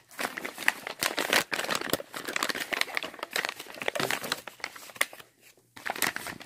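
A mailed package's wrapping crinkling and rustling as it is handled and a rubber band is worked off it. The rustling is irregular and stops briefly a little after five seconds in.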